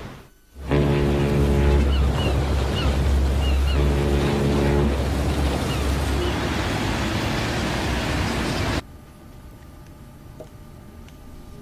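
A ferry's horn sounds twice, each blast about a second long, over a low engine rumble and the wash of water, with gulls calling in between. About nine seconds in it cuts off to quiet room tone.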